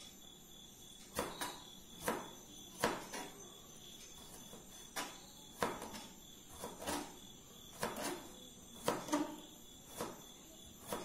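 Kitchen knife dicing a tomato on a plastic cutting board: about a dozen irregular knocks of the blade striking the board, some in quick pairs.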